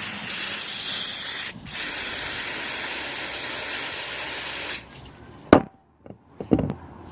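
Aerosol can of Lysol disinfectant spray hissing in a long spray, with a short break about a second and a half in, stopping near the five-second mark. Two short knocks follow.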